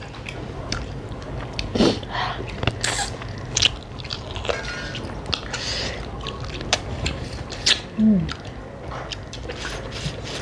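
Close-miked chewing and biting of rice and mutton curry eaten by hand: many short wet mouth clicks and smacks, with a short hum about eight seconds in.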